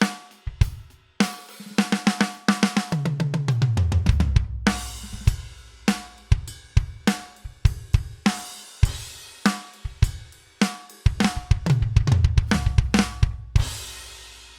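Sampled acoustic drum kit from a Pearl Mimic Pro electronic drum module, played from electronic pads: a groove of kick, snare, hi-hat and cymbals. It is broken twice by tom fills stepping down in pitch, and ends on a cymbal left ringing.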